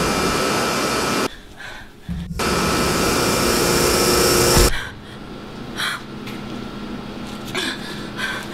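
A loud, steady rushing noise with faint steady tones in it. It cuts off abruptly about a second in, starts again a second later, and stops with a thump near five seconds in. After that come only quieter, scattered short sounds.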